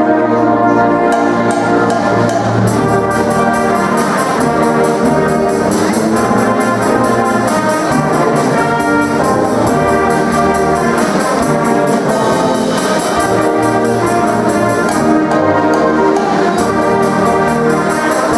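High school symphonic band playing a Christmas piece, with brass instruments such as trombones and trumpets clearly heard, in steady full chords that move on every second or so.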